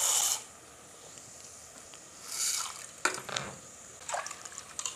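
Dry toor dal poured from a steel tumbler into a steel bowl of water, the pouring rush stopping just after the start. A hand then swishes and rubs the dal in the water to wash it, in short splashy bursts and small clicks.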